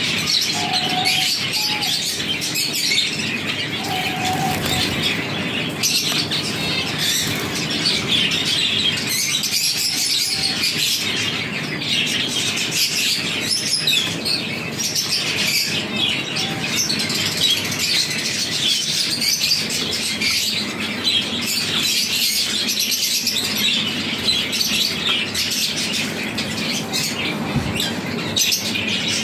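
A roomful of caged finches chirping and twittering continuously, many birds at once, with the odd flutter of wings.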